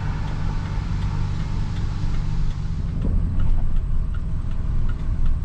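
Vehicle engine running steadily, with light ticks and knocks starting about three seconds in.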